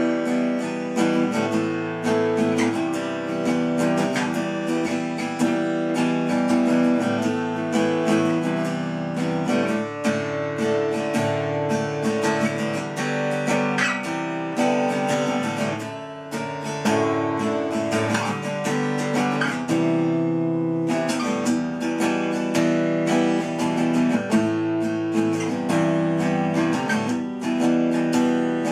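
Acoustic guitar strummed in a steady rhythm through a repeating chord progression, with no singing. The playing eases off briefly a little past the halfway point, then picks up again.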